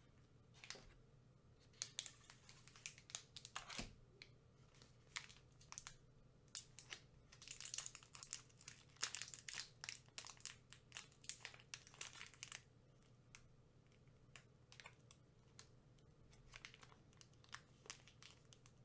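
Crinkly wrapper of a chocolate-covered mazapán candy being handled, torn open and peeled back by hand. It gives soft, irregular crackles, densest in the middle and thinning out toward the end.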